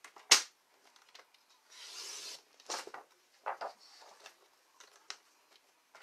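Stampin' Up! paper trimmer cutting cardstock: a sharp click near the start, then the blade sliding through the paper for under a second, followed by a few lighter clicks and rubs as the paper is moved on the trimmer bed.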